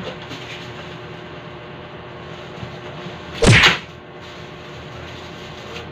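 A large cardboard box being handled while a PC case is pulled out of it, with one loud, brief cardboard scrape about three and a half seconds in.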